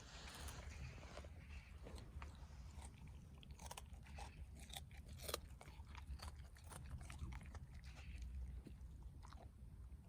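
A dog tearing at and chewing grass: irregular crisp crunches and tearing clicks, several a second, over a steady low rumble.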